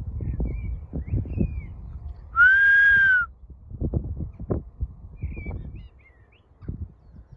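A handler's gundog whistle sounding one long, steady blast of just under a second, about two and a half seconds in. A few faint bird chirps come before and after it.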